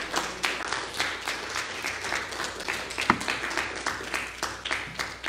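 A congregation applauding: scattered individual hand claps that thin out and fade near the end.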